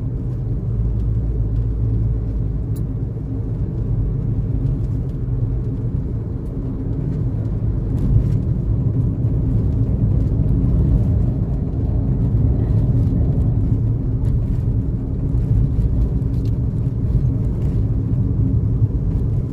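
Car driving, with a steady low rumble of road and engine noise and a few faint light ticks.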